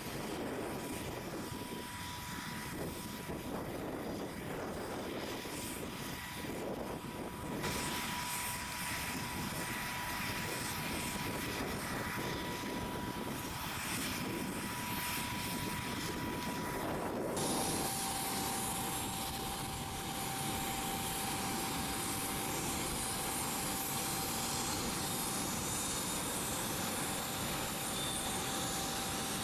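Jet airliner on the ground with its engines or auxiliary power unit running: a steady rushing noise under a high whine held on one note. The whine switches abruptly to a lower note about two-thirds of the way in.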